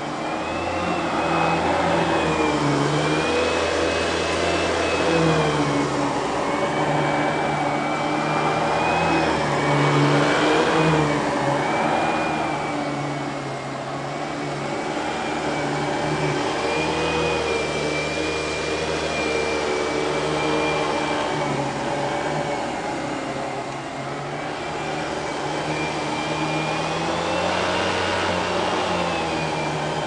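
Kenmore Progressive canister vacuum cleaner (model 116.20712000) running, with its Panasonic-made canister motor and electric power nozzle, as the nozzle is pushed back and forth over carpet. The motor's whine wavers up and down in pitch every few seconds with the strokes. For these canisters the motor sounds odd: it is an early, larger Panasonic motor.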